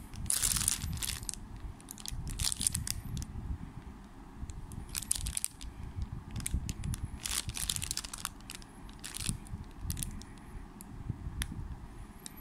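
Clear plastic bag crinkling in irregular bursts, with a few sharp clicks, as it is squeezed and handled around a bicycle chain, over a steady low rumble.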